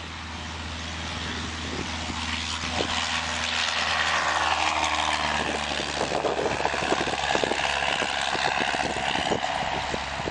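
Cessna 172R Skyhawk's four-cylinder engine and propeller running at takeoff power as the plane lifts off and climbs past. The sound grows louder over the first few seconds and then holds steady.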